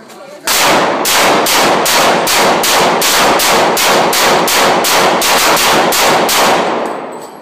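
Semi-automatic pistol fired in a long rapid string, about three shots a second for some six seconds, each shot ringing off the walls of an indoor shooting range.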